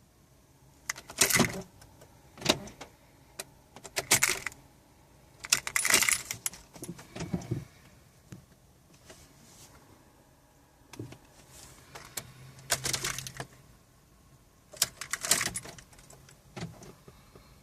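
A car key bunch jangling in about seven short rattles as a Volkswagen GTI's ignition key is turned again and again, with no engine cranking or running: the car is failing to start.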